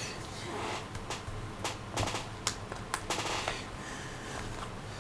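Hands handling a laptop's bottom cover on a table: light rubbing with a scattering of faint clicks as fingers work at the case edge.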